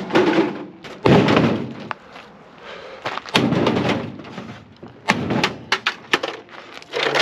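Thumps and knocks of a microwave oven's metal casing being handled and set down, several separate impacts with quieter scraping between them.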